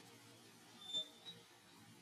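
Quiet outdoor background with one short, high-pitched chirp about a second in, followed by a fainter high blip.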